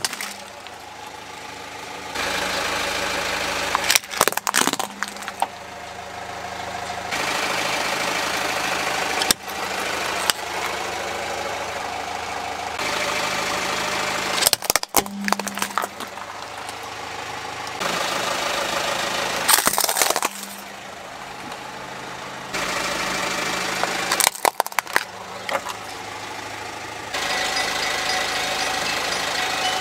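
A car engine idling while its tyre rolls over plastic toys and crushes them, giving a sharp cluster of cracks and snaps about every five seconds, five times in all. Between the crushes the engine hum jumps abruptly in level.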